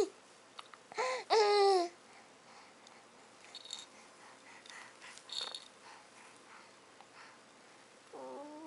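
Baby babbling: two short, high-pitched vocal sounds about a second in, then mostly quiet with a few faint small sounds, and a long held vocal sound beginning near the end.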